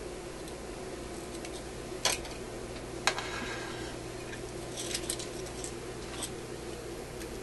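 Small metal hand tools clicking and snipping while working on capacitor leads inside a vacuum-tube radio chassis: two sharp snaps about two and three seconds in, then a few lighter clicks, over a steady low hum.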